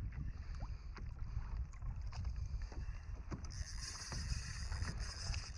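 Wind buffeting the microphone over choppy water lapping around a kayak, with scattered faint clicks. A brighter hiss comes in about three and a half seconds in.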